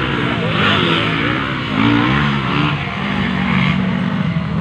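Motocross dirt bike engines running and revving on the track, their pitch rising and falling.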